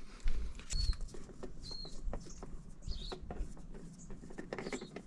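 Scattered light clicks, taps and scrapes of a loosened spin-on oil filter being turned off its mount by hand on a tractor engine, with a low bump about a quarter second in. Two short high chirps come about a second apart near the start.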